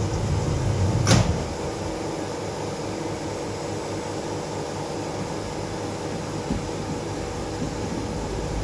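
Monorail car's sliding doors closing, shutting with a single loud knock about a second in, followed by the steady hum of the car's ventilation and equipment.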